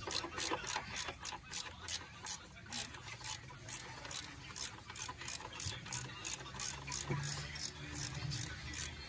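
Engine oil glugging out of a plastic jug into a funnel in the engine's filler neck, a regular gurgle about three times a second.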